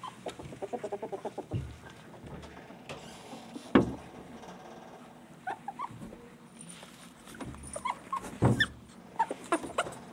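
Pet ferrets play-fighting. A quick run of clucking dooks comes in the first second and a half. Then a string of short, high, rising squeaks and whimpering cries follows, with two sharp knocks, the loudest near four seconds in.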